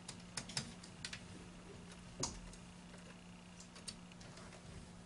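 A screwdriver working the screws of a PLC's plastic terminal strip: a handful of small, sharp clicks and ticks at uneven intervals, the loudest a little past two seconds in.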